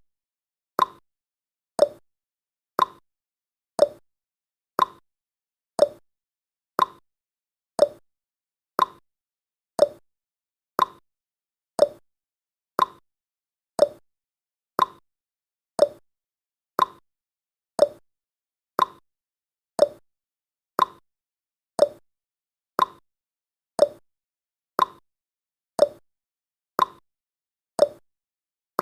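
Countdown timer's tick sound effect: one short, sharp tick every second, evenly spaced, with silence between the ticks.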